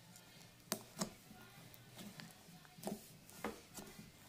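Metallic slime being stretched and folded by hand, giving irregular soft clicks and pops, about six of them.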